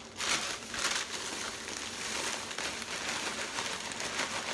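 Clear plastic cereal-box liner bag crinkling as it is opened and handled, with dry bran cereal shifting inside, a continuous rustle with a few sharper crackles.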